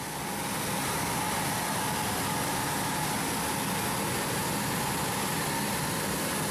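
Steady machine noise with a low hum beneath an even hiss, fading in over the first second and then holding level.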